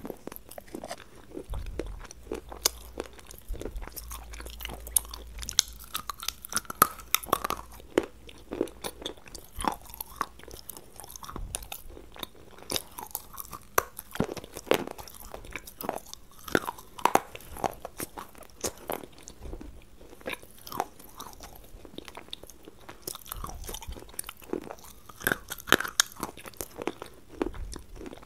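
Close-miked crunching and chewing as a person bites into and chews hard, brittle pieces of food, with irregular crisp cracks several times a second.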